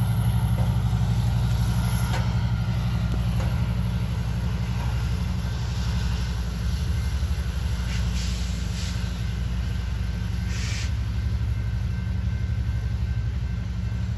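Diesel locomotive engine running steadily with a deep, even hum, with short hisses of air about eight seconds and ten and a half seconds in.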